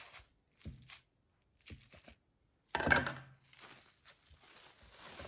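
Plastic cling wrap crinkling and rustling as a ball of dough is cut and handled through it, in a few short bursts, the loudest about three seconds in.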